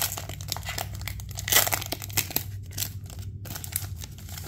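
Foil wrapper of a Pokémon trading-card booster pack being torn open and crinkled by hand: a dense run of crackling, with a louder crackle about one and a half seconds in.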